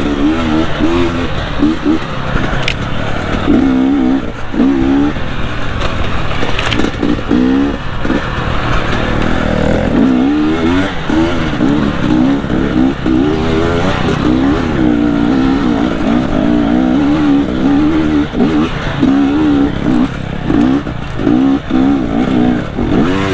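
KTM 250 XC TPI two-stroke single-cylinder dirt bike engine under way, its pitch rising and falling over and over as the throttle is opened and closed.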